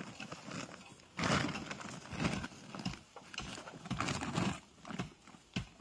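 Footsteps crunching and rustling through dry leaf litter, in uneven steps with a sharp click near the end.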